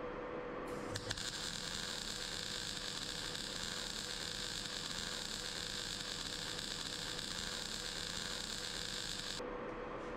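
MIG welder arc burning steadily as a bead is laid around a steel boss, an even crackling hiss that strikes up with a couple of clicks about a second in and cuts off sharply near the end.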